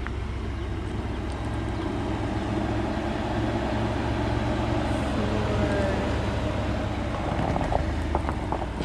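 Ford F-150 pickup's engine running, a steady low drone. A few sharp crackles come near the end.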